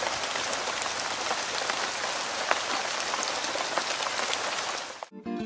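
Steady rain falling, an even hiss with scattered drop ticks, which cuts off abruptly about five seconds in. Plucked guitar notes begin right at the end.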